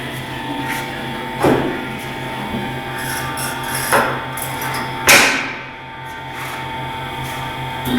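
A large-wheel tyre changer's motor runs with a steady hum. Three loud, sharp knocks or bangs of tyre-and-rim work break over it, the last and loudest about five seconds in.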